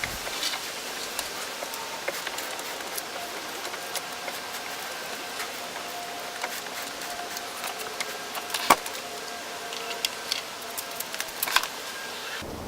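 Nissan 240SX steering wheel being turned back and forth by hand with the engine off, to draw fresh ATF down into the power steering pump. Scattered light clicks and knocks, with a sharper click about nine seconds in, over a faint steady tone through the middle.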